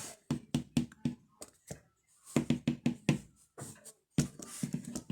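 A pencil case being tapped for ASMR: quick runs of sharp, hollow taps, several a second, with short pauses between runs.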